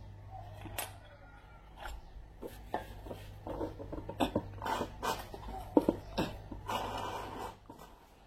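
Metal tools and parts knocking and scraping on a power steering rack being taken apart: a series of sharp clicks and knocks, then a longer rasping scrape, over a steady low hum that stops near the end.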